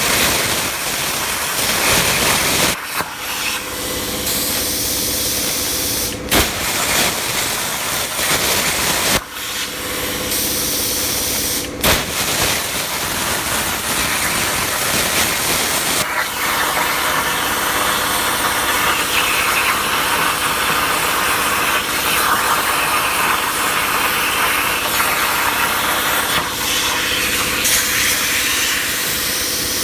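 Razorweld 45 plasma cutter, run at about 32 amps on a Langmuir Pro CNC table, cutting 16-gauge sheet metal: a steady hiss of air and arc over a hum. A few short breaks and clicks interrupt it.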